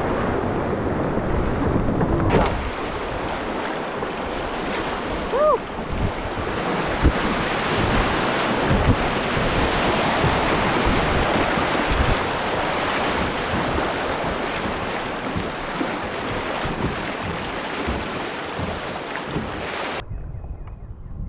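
Whitewater rapids rushing around a kayak, with wind buffeting the microphone and a few low knocks. Near the end the rushing drops away suddenly to much quieter calm water.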